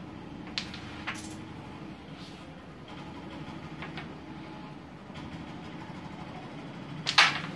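Carrom striker and wooden coins on a carrom board: a few light clicks as the striker is set down and adjusted, then a sharp clack near the end as the shot is struck and the pieces hit each other, over a steady low hum.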